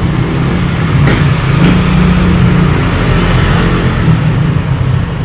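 A motor vehicle's engine running close by, growing louder about a second in and easing off near the end.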